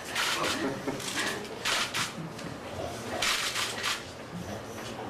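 Drawing strokes rubbing on an interactive whiteboard's surface, in four short scratchy bursts of about half a second each, over a low murmur of voices.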